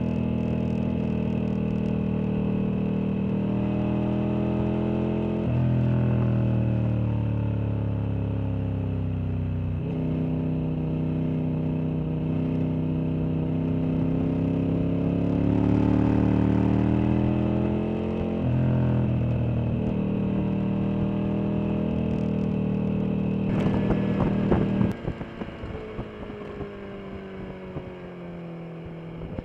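Sport motorcycle engine heard on board, accelerating through the gears: the pitch climbs and drops at each upshift, about five, ten and eighteen seconds in. Near the end there are a few sharp pops, then the engine goes quieter with the pitch falling as the bike slows.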